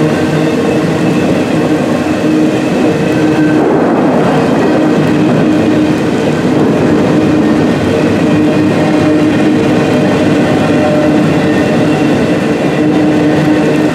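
A train rolling past, a loud, steady din of wheels on rail with a constant humming tone running through it.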